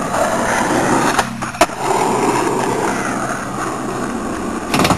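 Skateboard wheels rolling on asphalt, a steady rough rumble, with a sharp click about a second and a half in and a short clatter of knocks near the end.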